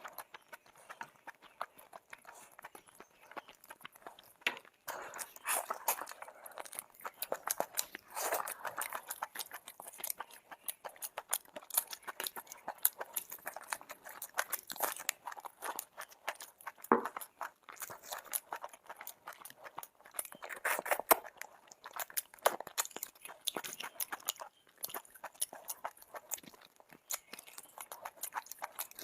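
A person chewing and biting food close to the microphone, with irregular crunches and many quick mouth clicks.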